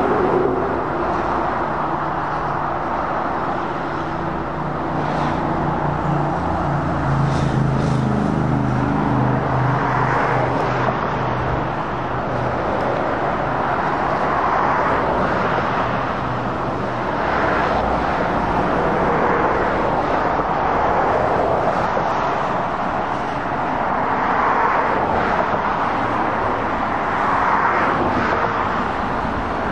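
Motorway traffic of lorries and cars passing, a steady rush of tyre noise that swells as each vehicle goes by. Through roughly the first ten seconds a heavy lorry's diesel engine drones low beneath it.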